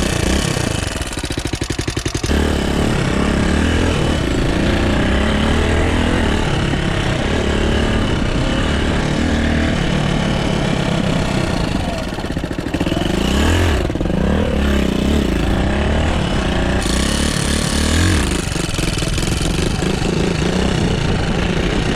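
Suzuki DR200's single-cylinder four-stroke engine, freshly rebuilt top end, idling with even firing pulses. About two seconds in it pulls away and revs up and down through the gears as the motorcycle is ridden.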